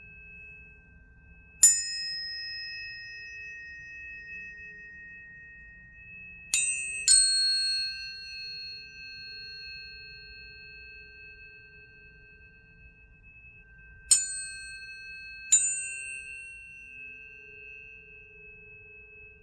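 Planetary tuning forks being struck one after another: five sharp strikes, each followed by a long, steady, pure ringing tone. The tones overlap and slowly die away.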